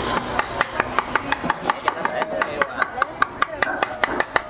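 Rapid, evenly spaced sharp knocks, about five a second, each with a short ring.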